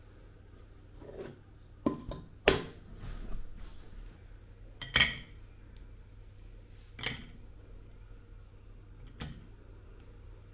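Clinks and knocks of dishes on a stainless-steel kitchen scale as a porcelain plate is set on it and slabs of dark chocolate are laid on the plate: about seven separate knocks, the loudest about two and a half and five seconds in, the second with a short ring.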